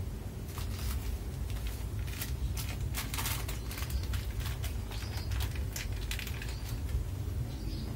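Small plastic seasoning sachet crinkling in the hands and being torn open, an irregular run of sharp crackles over a steady low hum.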